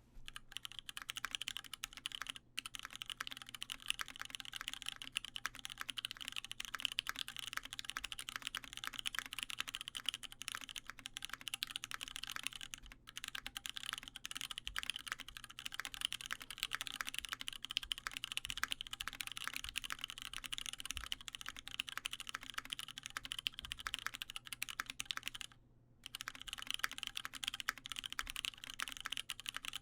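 Fast, continuous typing on a custom mechanical keyboard with lubed Cherry MX Brown tactile switches in an aluminium plate and CRP Tulip keycaps, with brief pauses about 2.5, 13 and 26 seconds in.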